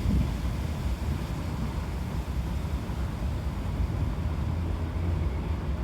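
Diesel railway locomotive running, a steady low rumble.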